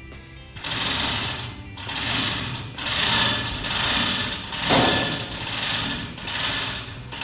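A metalworking tool running in repeated noisy bursts of about a second each, over background music.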